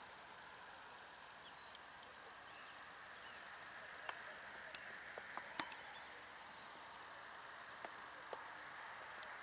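Faint, steady open-field background noise with a few short, faint chirps. Scattered soft clicks come mostly around the middle, with two more near the end.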